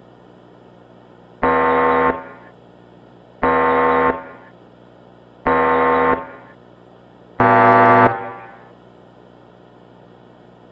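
Emergency-alert alarm tone: four harsh, buzzing blasts about two seconds apart, each under a second long with an echoing tail, the fourth the loudest, over a low steady hum.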